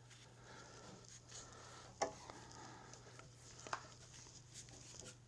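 Nearly quiet room with a steady low hum and a few faint clicks and taps from handling small parts, the clearest about two seconds in and another near four seconds.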